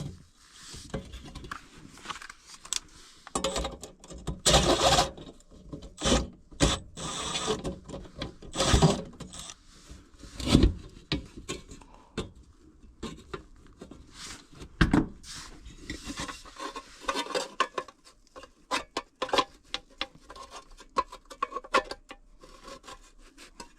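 Hand work on furnace parts: irregular knocks, clicks and short scraping and rubbing sounds of metal parts and tools being handled while an adapter piece is moved onto a new inducer motor.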